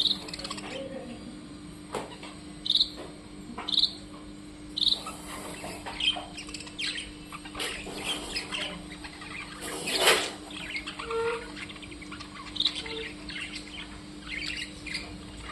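Small birds chirping and tweeting in many short, quick calls, with a few louder clear single notes spread through and one louder, sharper call about ten seconds in. A steady low hum sits underneath.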